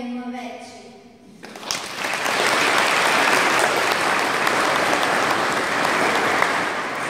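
Congregation clapping: applause breaks out about a second and a half in and carries on steadily, just after a girl's sung note through a microphone ends.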